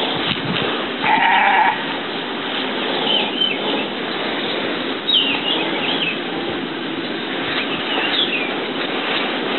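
Short high chirps and whistles from small forest birds over a steady background hiss, with a loud bleat lasting under a second about a second in.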